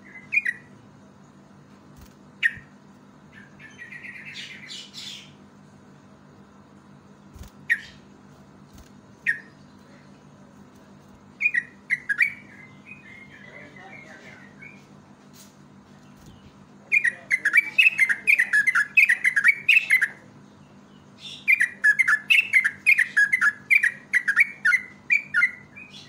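Trucukan (yellow-vented bulbul) singing: scattered short single calls at first, then a chattering phrase, building to two long, loud runs of rapid bubbling notes in the second half.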